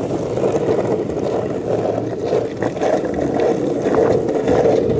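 Longboard wheels rolling fast over asphalt: a steady loud rumble, with a few faint clicks from bumps in the road surface.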